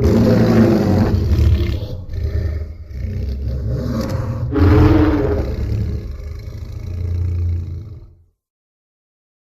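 A monster roar sound effect from the Godzilla anime films: one long, deep roar that swells and falls several times over about eight seconds, then fades out.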